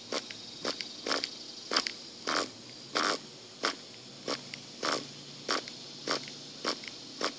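Nitro RC buggy's pull starter yanked in quick, short pulls, about one and a half a second, each a brief whirr of the small nitro engine turning over without catching. A steady high-pitched hiss runs underneath.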